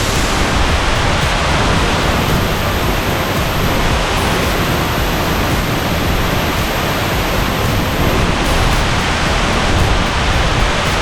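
Waterfall of several falls side by side, water pouring down in a loud, steady rush.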